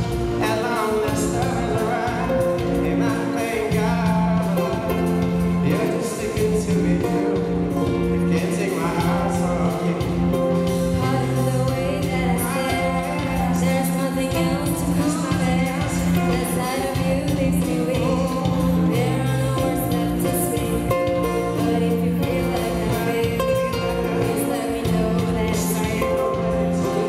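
A woman singing lead over a live pop band of electric guitars, saxophone and drum kit, played through the PA.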